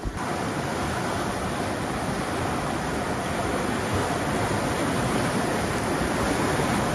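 Whitewater river rapids rushing: a steady, even noise of churning water that grows slightly louder toward the end.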